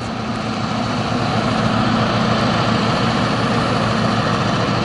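Diesel locomotives of a freight train, a Canadian National unit leading a Grand Trunk unit, running past. It is a steady engine drone that grows a little louder over the first second or so, then holds.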